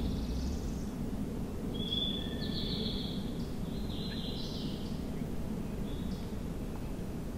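Small songbirds singing a few short, high-pitched phrases over a steady low background rumble of outdoor noise.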